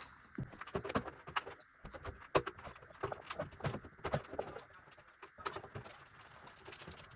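Faint, irregular clicks, taps and scrapes of a hand fumbling a bolt into a rear spoiler's mounting hole from inside a car's trunk lid, with a sharper knock about two and a half seconds in.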